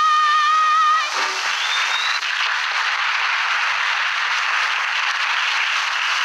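A man's voice holds a sung note with vibrato, which ends about a second in. Audience applause follows, with a short rising whistle soon after it starts.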